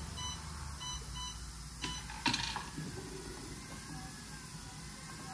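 Electronic warning buzzer of a pneumatic sorting machine giving several short beeps in the first two seconds, the machine's alarm for air pressure below 3 bar. About two seconds in there is a click and a brief burst of hiss.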